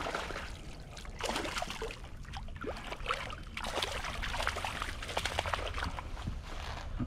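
Water splashing and dripping close by: quick, irregular small splashes and trickles, over a low steady rumble.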